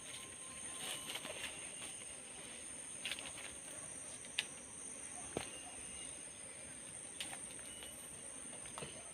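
Tropical forest ambience: a steady high-pitched insect drone with scattered knocks and snaps, the sharpest a little past four seconds in, and a few faint short bird calls.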